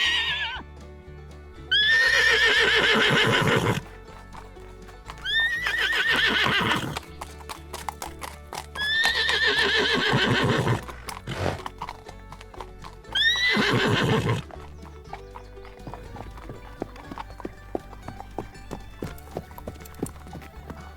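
A horse whinnying: four long neighs, each falling in pitch and shaking, after the tail of one at the very start. From about 15 seconds in, hoofbeats clip-clop in quick succession instead. Background music plays under it all.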